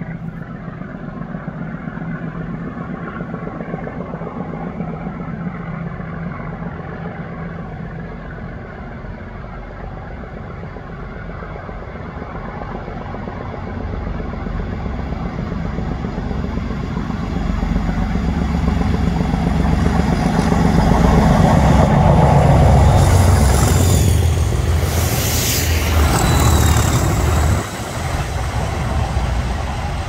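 English Electric Class 37 diesel locomotives approaching under power, their engine note rising steadily and growing much louder from about halfway through. Near the loudest point there is loud hissing twice, and the sound drops off suddenly shortly before the end.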